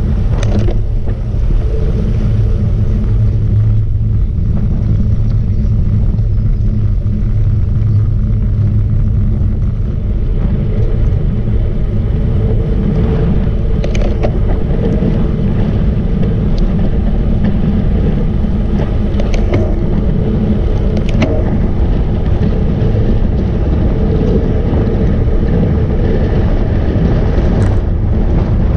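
Steady, loud wind rumble buffeting the microphone of a camera on a moving road bike, heaviest in the low end. A few faint clicks come through around the middle.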